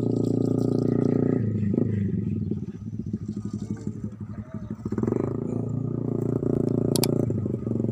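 A small engine running steadily with a low drone, turning quieter and uneven, with a rapid chugging pulse, for a couple of seconds in the middle.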